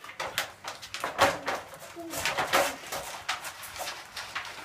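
Stainless-steel dog bowl and wire dog crate clinking and rattling in a series of sharp clatters as they are handled, the loudest about a second in, with a few short vocal sounds about two seconds in.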